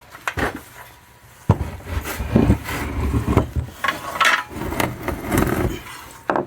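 Knocks, thuds and scraping from handling a mower engine as it is lifted and set down on a shelf: a sharp knock about a second and a half in, heavier thuds after it, then scraping.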